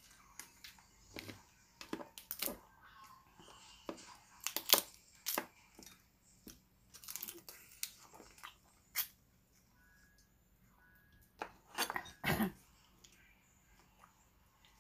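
Close-up sounds of eating boiled crab by hand: irregular cracks and snaps as shell is broken and meat pulled apart, mixed with wet chewing and lip smacking. The loudest cracks come about a third of the way in and near the end.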